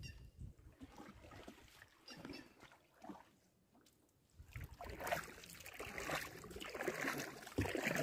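Water splashing and trickling around a canoe under paddle, louder in the second half, with a thump against the hull near the end.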